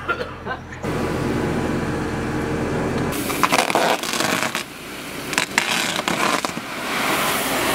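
Gravel pouring out of a slit bulk bag onto a gravel bed: a rattling rush with scattered clicks, growing denser near the end. Before it, for about three seconds, a steady machine hum.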